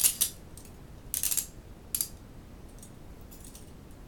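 Hinged stainless steel handcuffs being handled, giving three short bursts of sharp metallic clicks about a second apart, then a few faint ticks.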